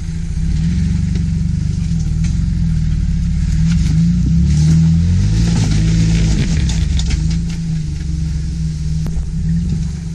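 Jeep Wrangler engine running at low revs while crawling over rocks, rising and falling in revs briefly around the middle. Scattered clicks and knocks come mid-way as the tires work over the stone.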